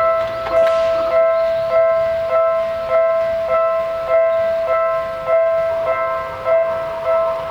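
Japanese railroad crossing warning bell ringing: an electronic ding repeating evenly, nearly two strikes a second.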